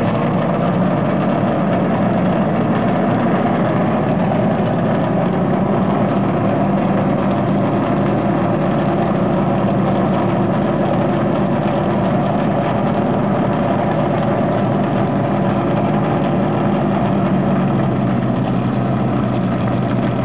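NASCAR Cup Chevrolet's pushrod V8 race engine idling with a loud, steady rumble; its note settles slightly lower near the end.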